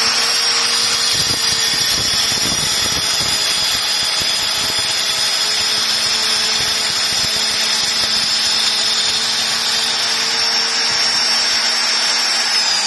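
Handheld electric marble cutter with a diamond blade cutting through a marble strip: a steady high whine over a grinding noise, the whine dropping near the end as the cut finishes.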